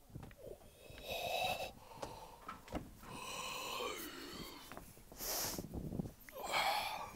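A person's wordless vocal noises: a held breathy sound about a second in, a longer drawn-out sound that slides in pitch, then a short hiss about five seconds in and another breathy sound near the end.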